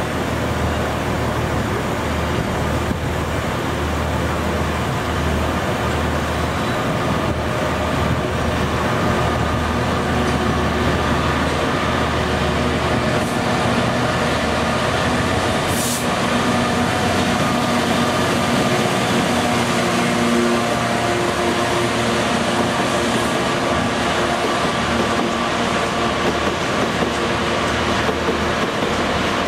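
Class 66 diesel-electric freight locomotive, with its EMD two-stroke V12 engine, running steadily past at the head of a train of coal hopper wagons. A constant engine drone with a steady whine sits over the low rumble of the wheels and wagons rolling on the rails.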